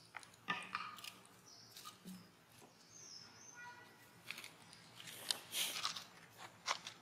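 Macaques scampering and scuffling over sandy ground littered with dry leaves: scattered scuffs and crisp leaf rustles, busier in the second half, with a brief high chirp about three seconds in.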